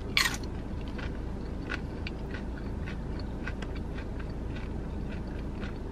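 A crisp crunch as a tortilla chip from loaded nachos is bitten just after the start, then chewing with many small crunches, over a low steady hum inside a car cabin.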